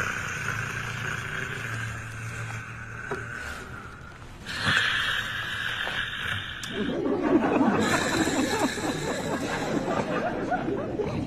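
A person snoring, with one low, drawn-out snore a couple of seconds in, then stifled, snickering laughter from about seven seconds on.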